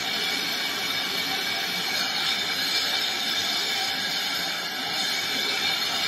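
Hand-held gas brazing torch burning steadily with an even hiss, its flame heating a copper refrigerator tube joint while silver-bearing, flux-coated brazing rod is fed in.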